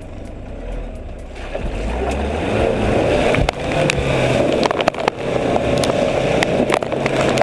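Nissan 4WD ute's engine revving as it drives through a muddy bog, with mud and water splashing under the tyres. It gets louder about a second and a half in, with a few sharp knocks from the truck partway through.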